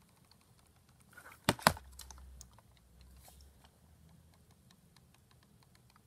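A hard plastic, liquid-filled fidget toy handled in the fingers: two sharp clicks about a second and a half in, then faint, irregular light ticks.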